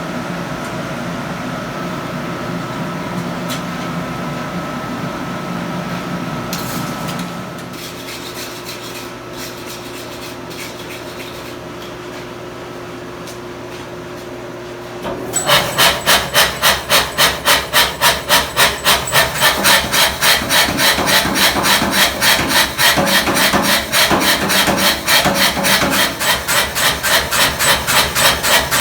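A steady mechanical hum that drops in level about seven seconds in. About halfway through, loud rhythmic scraping starts, roughly three back-and-forth strokes a second, which carry on to the end.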